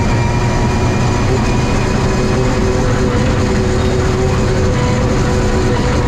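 BMW E36 rally car engine pulling hard in sixth gear at high speed, heard from inside the stripped cabin as a steady, loud drone over road noise.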